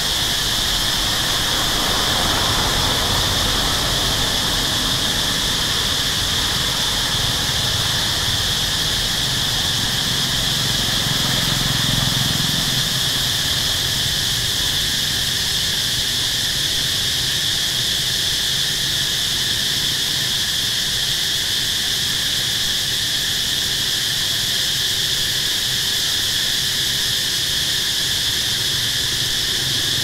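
A steady, shrill chorus of insects holding a high pitch without a break. A low engine rumble from distant traffic swells under it around the middle and again near the end.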